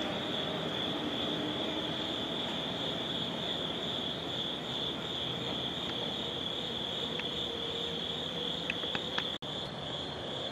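Crickets chirring in a steady, even night chorus, one high unbroken trill, with a few faint clicks near the end.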